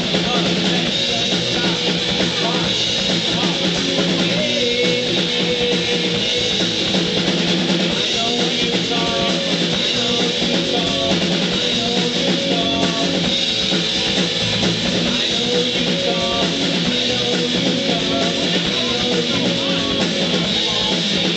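Rock band playing live, with guitar and drum kit.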